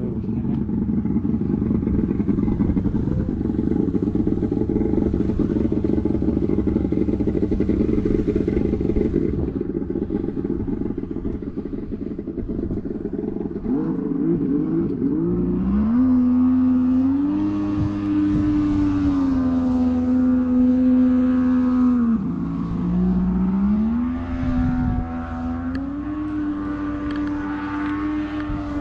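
Small motorboat's engine running. A rough low rumble with no clear pitch gives way about halfway through to a strong engine tone whose pitch steps up, dips briefly, then climbs again as the throttle changes.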